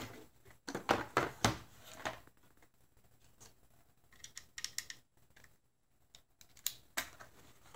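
Scattered sharp clicks and rattles of a plastic screwdriver-bit case being opened and small steel bits being handled, with one fitted into a screwdriver.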